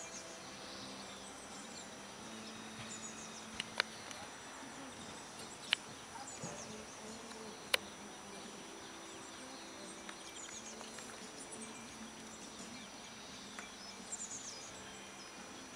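Quiet open-air ambience: small birds chirping high now and then over a faint low hum. Four sharp clicks fall in the first half.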